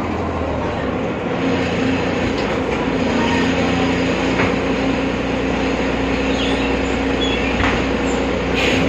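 BredaMenariniBus Avancity Plus city bus with a ZF gearbox running steadily, heard from inside, with a steady low hum over the rumble of the drivetrain and road. A brief clatter comes near the end.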